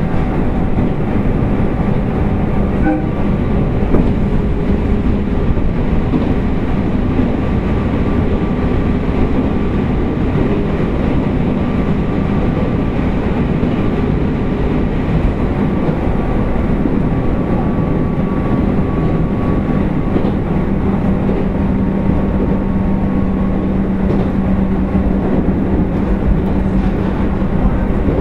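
Abukuma Express 8100 series thyristor phase-controlled AC electric train running along the line: steady rumble of wheels on rail. A low hum grows stronger in the second half.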